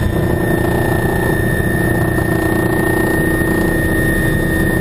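Helicopter rotor and turbine heard from inside the cabin in flight: a loud steady drone with steady whining tones, a lower one coming in at the start.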